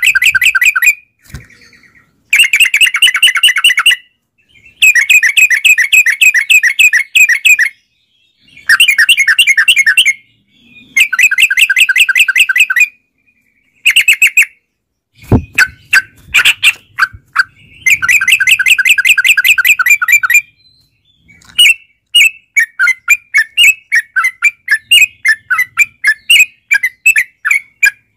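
Yellow-vented bulbul (trucukan) singing: loud bouts of rapid, bubbly chattering notes, each a few seconds long with short pauses between, then a looser string of separate short notes near the end. A single sharp knock about halfway through.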